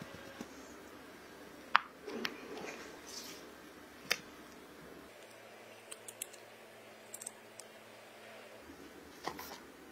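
Kitchen utensils tapping and scraping against a glass mixing bowl while chocolate cake batter is sifted and stirred, then soft squishes as the batter is piped into paper cupcake liners. There are scattered sharp clicks, the loudest about two seconds in, and a short stretch of scraping just after it.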